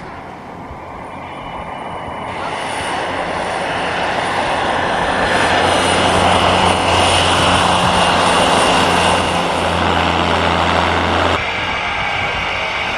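De Havilland Canada DHC-3 Otter's engine and propeller running, a steady low drone under a broad rushing noise that builds over several seconds. The sound drops suddenly near the end.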